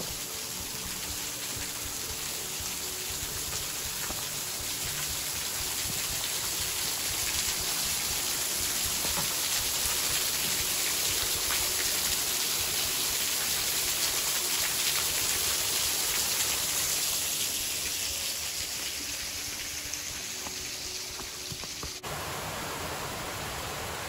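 Steady rushing and splashing of a small waterfall pouring off a rock ledge into a pool. It swells louder toward the middle and eases off again.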